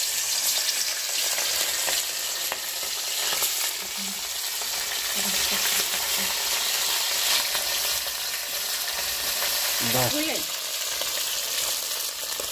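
Fish pieces frying in hot mustard oil in a wok: a loud, steady sizzling hiss of shallow frying, just after the fish went into the oil.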